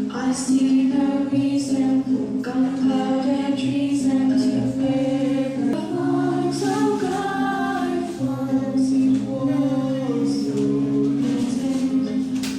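Vocal music: several voices singing together over steady held low notes.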